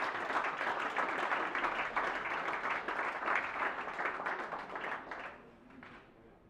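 Audience applauding, a dense patter of many hands clapping that fades away about five seconds in.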